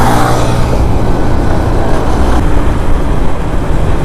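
Motorcycle on the move: its engine running under a loud, steady rush of wind on the helmet-mounted camera's microphone.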